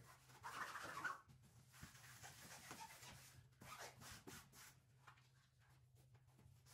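Faint rubbing and scratching of flex wallpaper being pressed and smoothed onto the wall by hand, in short irregular strokes that are loudest about a second in, over a low steady hum.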